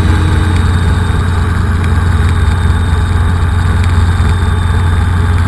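Light helicopter's engine and rotors heard from inside the cockpit: a loud, steady, deep drone.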